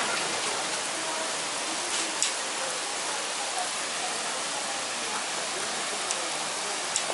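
Heavy rain pouring down steadily, a dense even hiss, with a few sharp ticks of drops striking close by, about two seconds in and again near the end.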